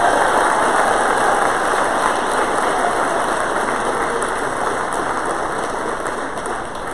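Audience applauding steadily, strongest at the start and easing off slightly toward the end.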